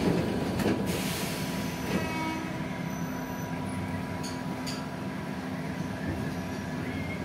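Interior noise of a Tokyu 8500 series electric commuter train car: a steady rumble and hum with a couple of level tones. A short hiss comes about a second in and two light clicks near the middle.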